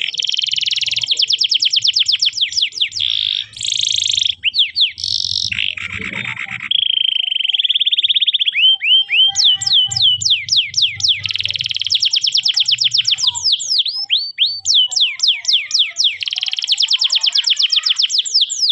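Domestic canary singing a long, varied song: fast rolling trills, then runs of quick down-slurred whistled notes at a few per second, broken by more rapid trills.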